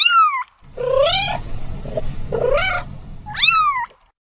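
Domestic cat meowing four times: the first and last calls fall in pitch, the two middle ones rise, over a low rough noise.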